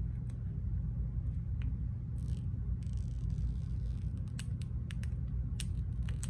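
Clear plastic shrink wrap being peeled off an iPhone box: scattered crinkles and ticks, with a longer tearing rustle about two to four seconds in, over a steady low hum.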